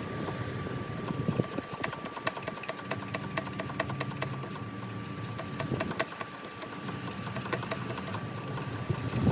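Hand ratchet clicking in a rapid, even run as it turns out the alternator's 15 mm mounting bolts.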